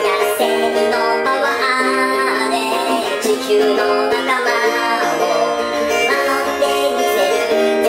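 Background music with many notes changing, held at a steady level.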